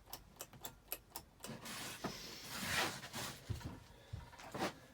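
Hunter Original ceiling fan being switched on at low speed: a quick run of clicks and ticks, then a few soft whooshing swells.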